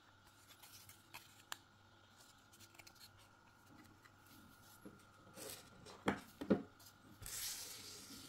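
Handling of a disassembled hair clipper's plastic housing: faint small plastic clicks and taps, then two louder knocks about six seconds in and a short rustle near the end.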